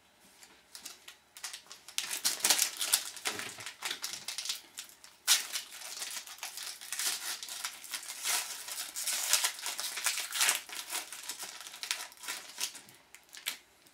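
Foil hockey card pack wrappers being opened and crinkled in the hands, a run of irregular crackles that starts about two seconds in and is loudest near two and a half and five seconds.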